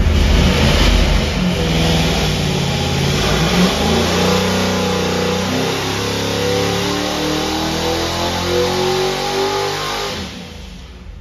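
377-cubic-inch Clevor V8 on an engine dyno making a wide-open-throttle pull during break-in: it revs up, then sweeps steadily higher in pitch to about 6,000 rpm, and drops away suddenly near the end as the throttle is pulled back.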